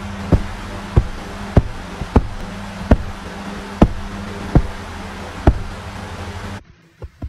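A string of eight sharp taps, roughly one every three quarters of a second, over a steady low hum. Both stop abruptly near the end.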